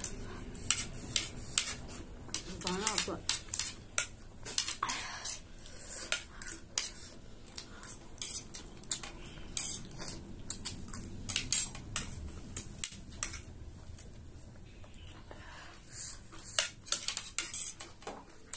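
Small metal spoons clinking and scraping against ceramic plates as two people scoop up chatpate, a run of sharp, irregular ticks.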